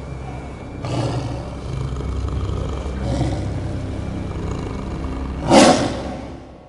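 Big-animal roar sound effect: three drawn-out roars over a low rumble, the last one loudest, then the whole sound fades out near the end.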